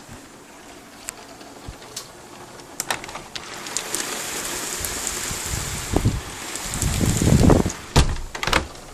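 Heavy rain falling, a steady hiss with scattered sharp drop ticks close by. Through the second half a louder rushing swell builds and deepens, peaks about three-quarters of the way in, then drops away.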